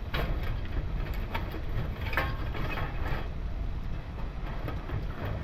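Small dry sticks being handled and stacked into a fire lay: irregular light wooden clicks and knocks, over a steady low rumble.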